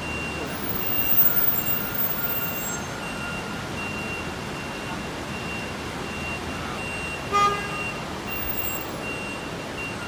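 Steady road traffic noise with a hiss, a faint high beep repeating throughout, and a short vehicle horn toot about seven seconds in.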